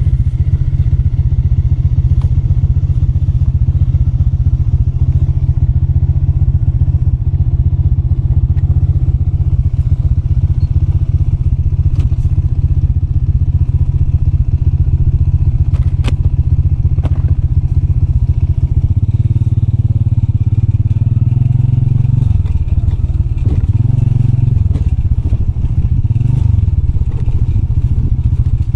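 Motorbike engine running steadily, with a few sharp knocks and rattles. In the last third, the engine pitch rises and falls several times as the throttle opens and closes.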